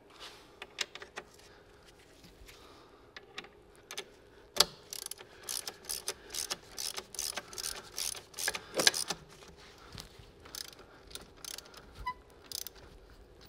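Ratchet wrench with a socket clicking in runs as it is worked back and forth, tightening the strut-to-knuckle bolts on a car's front suspension.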